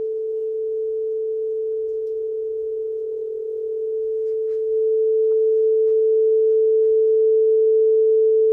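Steady single-pitch test tone of a television test-pattern broadcast, held unbroken and stepping up in loudness about five seconds in.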